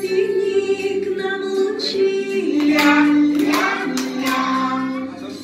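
A woman and a group of young children singing a simple song together in unison, holding each note for about a second.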